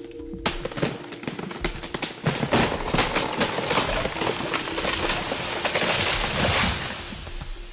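A dense run of cracks and crashes of breaking wood and snapping branches, as a felled tree comes down through the canopy. It grows louder about two and a half seconds in and eases off near the end.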